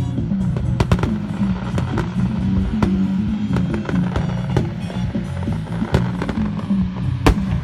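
Fireworks bursting in a rapid, irregular string of sharp bangs over music with a steady low bass line; the loudest bang comes about seven seconds in.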